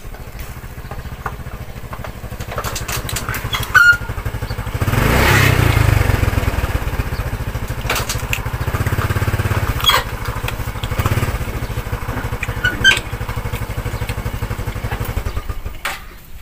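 A small engine running with a rapid, even pulse. It swells about five seconds in, holds, and fades near the end. A few sharp clicks sound over it.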